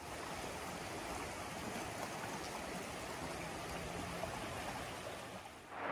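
A rushing mountain river: a steady, even rush of flowing water.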